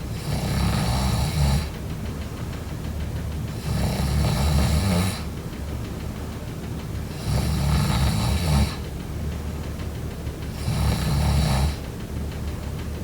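A person snoring in their sleep: four snores about three and a half seconds apart, each lasting a second or so, with quieter breathing in between.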